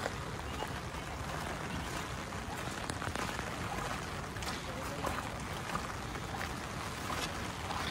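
Steady wind rumbling on the microphone with light rain falling, and scattered small taps of drops on an open umbrella.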